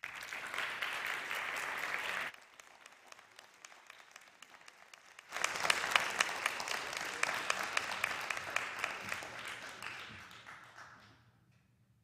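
A congregation applauding. It drops off sharply about two seconds in, swells again about five seconds in, and fades out near the end.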